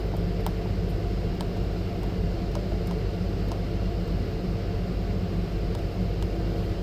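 Steady low hum of machinery and cooling fans, with a few faint, scattered clicks from keypad buttons being pressed.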